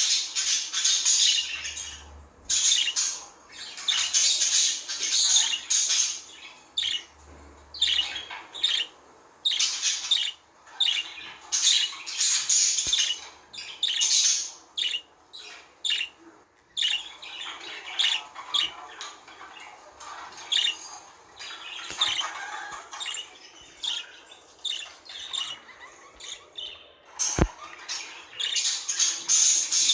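Budgerigars chattering and chirping in rapid bursts with short pauses between them. There is a single low knock near the end.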